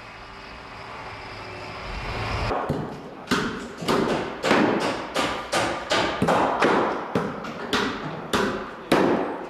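A swelling rush of noise for about two and a half seconds, then sharp, evenly spaced hammer strikes, about two a second.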